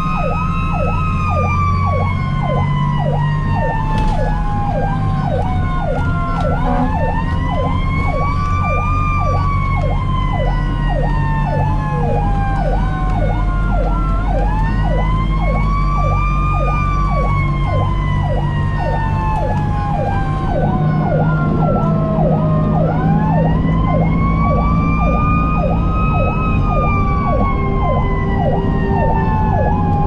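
Fire engine siren sounding while the engine is on a call: a fast yelp of nearly two sweeps a second, with a wail on top that rises quickly and then falls slowly, starting again about every eight seconds. Underneath, the truck's engine drones steadily, heard from inside the cab.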